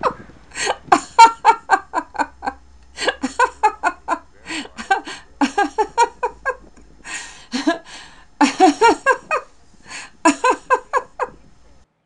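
A woman laughing hard in long fits of quick, repeated bursts, with short pauses for breath between them; it stops just before the end.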